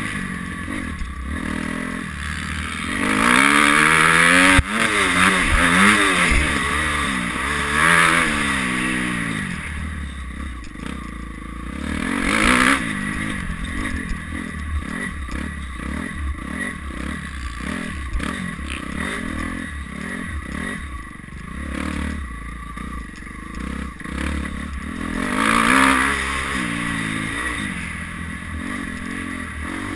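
Dirt bike engine revving up and easing off over and over as it is ridden around a motocross track, heard from the rider's helmet camera. It rises hardest a few seconds in, again around the middle and near the end.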